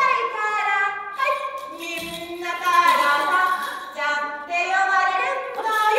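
A woman's voice in a high sing-song, holding long drawn-out notes one after another.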